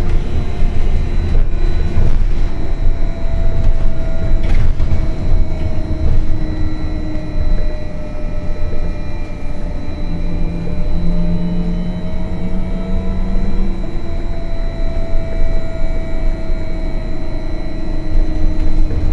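Škoda 30Tr trolleybus heard from the passenger cabin while driving, apparently on battery (partial traction): the electric traction drive whines, shifting slightly in pitch with speed, over a steady high tone and low road rumble. A lower hum joins for a few seconds near the middle.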